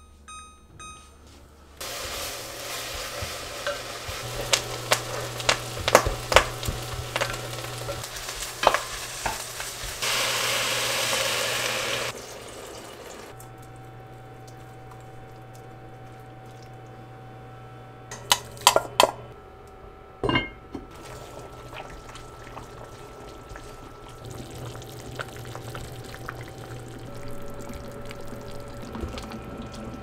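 A wooden spoon stirs beef and seaweed sizzling in a cast-iron pot, with repeated clacks of the spoon against the pot over a steady low hum. A stronger rush of sizzling hiss comes about ten seconds in and lasts about two seconds.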